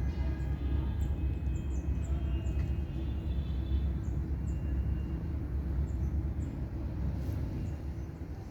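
Outdoor ambience: a steady low rumble, with faint short bird chirps repeating throughout.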